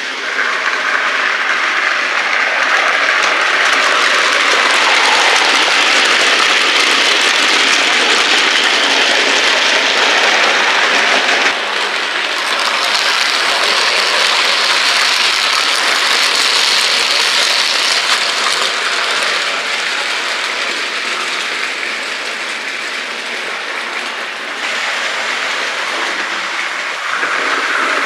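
OO gauge model trains running on the layout's track, a steady rolling and motor noise with a faint clickety-clack from the rails. The sound changes abruptly about 11 seconds in and again near the end.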